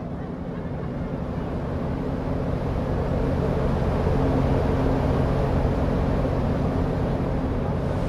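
A steady low drone, a few held low tones over a noisy rushing wash, slowly growing louder over the first few seconds.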